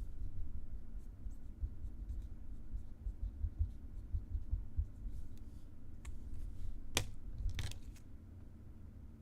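Faint handling noise of trading cards and wrappers being moved around on a table, with a few light clicks about six to eight seconds in.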